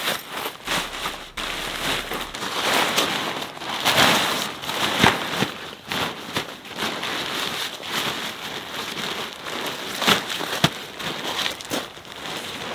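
Green tent fabric rustling and crinkling as it is folded and rolled up tightly by hand, with gravel crunching as she shifts on it.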